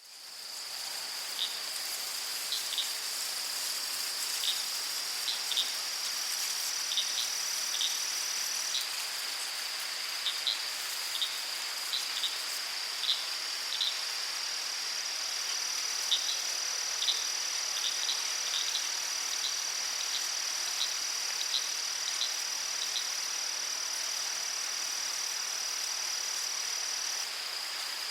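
Crickets trilling steadily at a high pitch, with a second, higher trill joining for two long stretches. Short high chirps repeat irregularly over a soft, even hiss. The sound fades in at the start.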